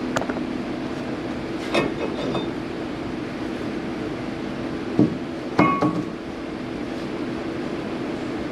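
Hammer knocking on a steel brake rotor: about six irregular metallic knocks, the loudest two around five to six seconds in, one leaving a brief ring. A steady hum runs underneath.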